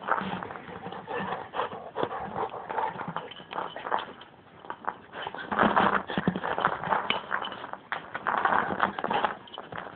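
Golden retriever mouthing and chewing a rubber ball right at the phone, a busy run of quick clicks, squelches and fur rustling that grows louder in two spells in the second half.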